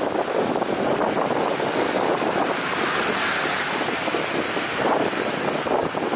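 Rolls-Royce Trent 700 jet engines of an Airbus A330-300 running as the airliner rolls along the runway: a steady, loud jet rush with no clear whine.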